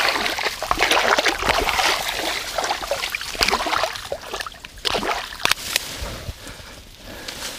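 Water splashing and sloshing in irregular bursts as water weed is pulled out to clear a fishing spot, easing off over the last couple of seconds.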